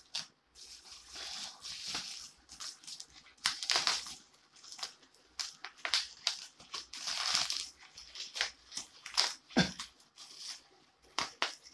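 Bubble wrap and brown packing tape being cut with a knife and pulled off a metal frame: irregular crinkling and crackling in uneven bursts, with a few sharp clicks.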